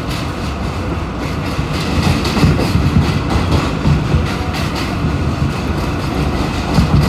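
Alstom R160A New York City Subway car running at speed, heard from inside the car: a steady wheel-on-rail rumble with irregular clacks from the track.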